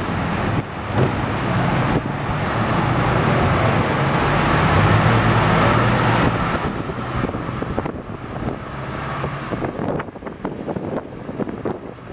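City street traffic: a truck's engine runs steadily close ahead, over a haze of road noise. It is loudest through the middle, then quieter with scattered clicks and knocks near the end.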